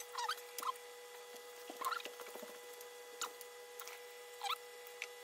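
Allen key tightening the mounting screws of an electric motor: a few short squeaks of metal turning on metal among light scattered clicks, over a faint steady hum.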